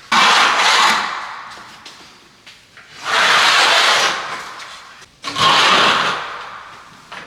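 Three rough scraping noises, each about a second long, starting sharply and fading away.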